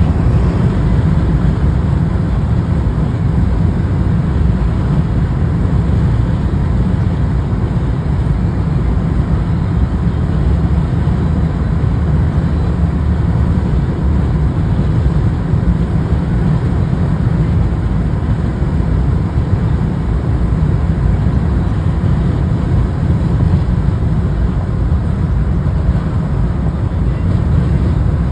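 Steady low rumble of road and wind noise heard from inside a car moving at highway speed.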